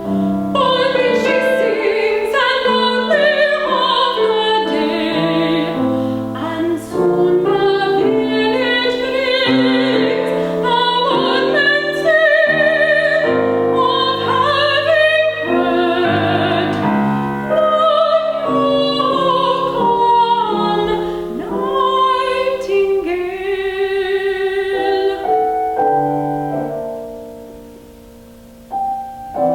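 Female classical voice singing an art song with vibrato, accompanied by piano. The voice stops about 25 seconds in, and the piano grows quiet before its chords pick up again near the end.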